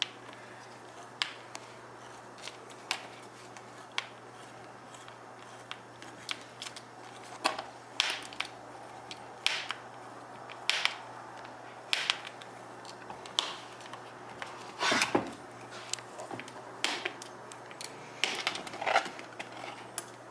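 Irregular clicks and knocks of metal hand tools being handled and worked against a stuck fastener on a steering wheel, a sharp tap every second or so.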